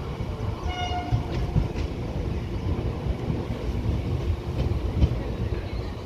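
Passenger train running along a station platform, heard from aboard: a steady low rumble of the coaches with irregular knocks from the wheels. A short high tone sounds about a second in.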